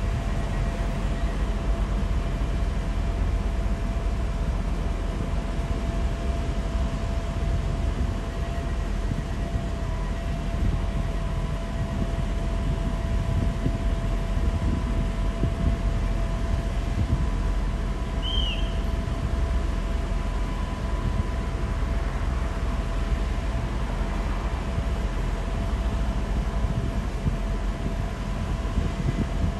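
PESA SA136 diesel railcar idling at a platform: a steady low rumble with a constant whine over it.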